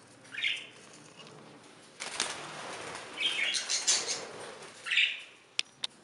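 Budgerigars in an aviary making short, harsh chirping calls, four in all, with a flurry of fluttering wings in the middle. Two sharp clicks come near the end.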